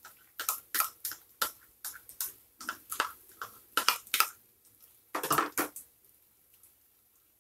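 A spoon scraping and tapping as thick curd is scooped from a plastic cup into a glass bowl of gram flour: a quick run of short clicks and scrapes, a longer scrape about five seconds in, then quiet near the end.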